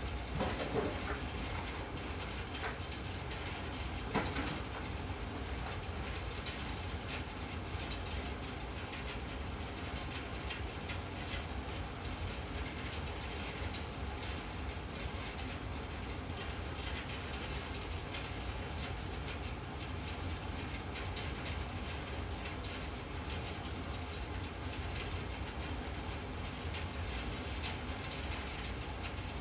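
Room tone of an empty bedroom: a steady low hum and hiss with scattered faint clicks and a couple of slightly louder brief sounds near the start.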